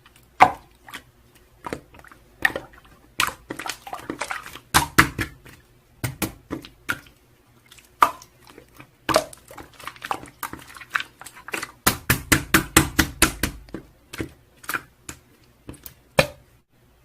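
Irregular sharp taps and clicks, with a quick run of about six a second from around twelve seconds in.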